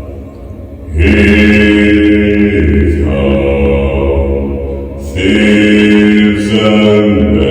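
Deep, resonant chanting in long held notes over a low drone. A new phrase begins about a second in and again about five seconds in, each shifting pitch once partway through.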